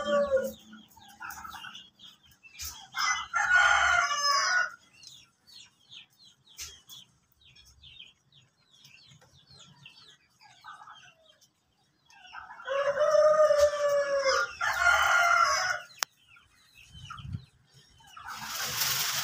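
Loud crowing calls of farm fowl, one group about three seconds in and another around thirteen seconds in, with faint clicks and chirps between. A rush of hissy noise comes in near the end.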